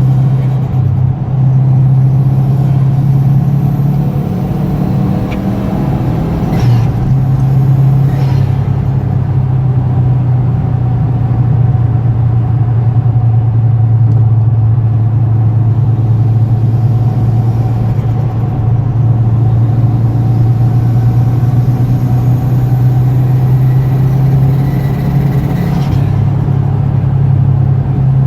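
Subaru Impreza WRX STI's turbocharged flat-four engine running steadily under way, a loud constant drone. Two brief noisy bursts come through about six and eight seconds in.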